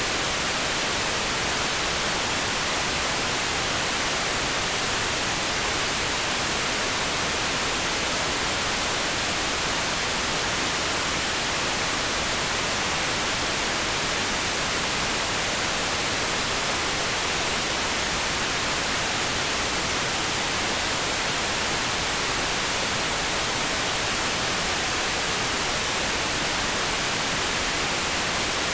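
Steady synthetic pink noise: an even, unchanging hiss with no breaks or changes in level.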